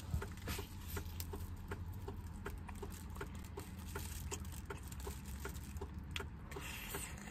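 A man chewing braised chicken with his mouth open: wet lip-smacking clicks at about three a second, with a low steady hum underneath.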